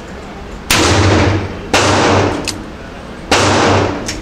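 Ruger Security Six revolver firing three .357 Magnum rounds (Geco): two shots about a second apart, then a third after a longer pause. Each is a sharp, loud blast followed by a long echo in an indoor range.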